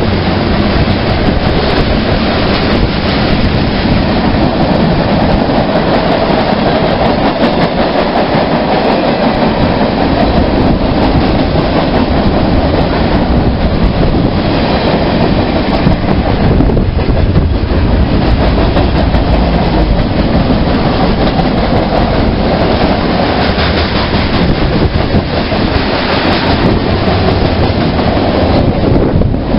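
A train passing close by: a loud, steady rumble of its wheels running on the rails that carries on throughout.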